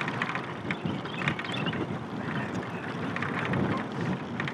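Recumbent trike rolling along pavement: steady tyre and riding noise with wind on the microphone and scattered small clicks and rattles.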